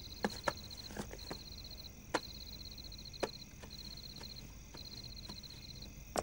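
Crickets chirping faintly in repeated trills about a second long with short gaps, with a few sharp clicks scattered through.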